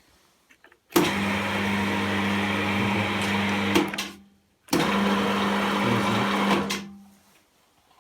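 Electric motor and reduction gearboxes of a cold-forging machine switched on twice by push-button, forward and then reverse, each time running steadily for about three seconds and then winding down after being switched off.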